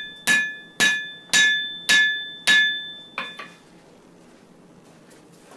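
Hand hammer blows on a hot wire-rope (cable Damascus) knife blade against an anvil, about two a second, each leaving a clear metallic ring. Five strong blows are followed by a lighter sixth, and the hammering stops about three and a half seconds in.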